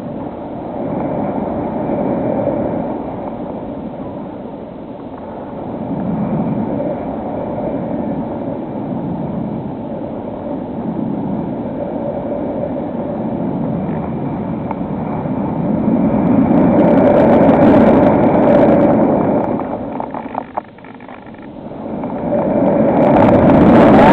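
HobbyKing SkyEye FPV plane in flight: wind rushing over the airframe with the electric motor's steady hum, swelling and fading with throttle and airspeed, loudest about two-thirds of the way in.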